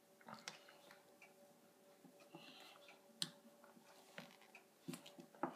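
Near silence, broken by a few faint, scattered taps of a small plastic doll touching a wooden surface as it is flipped through cartwheels by hand, over a faint steady hum.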